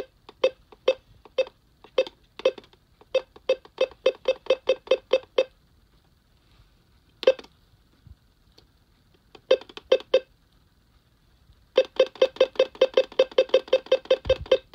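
Alert Works EAR-10 weather radio's keypress beeps as its buttons step through the SAME county-code menu. Short, identical beeps come in quick runs of several a second, broken by pauses, with a single beep about seven seconds in and a fast run of beeps near the end.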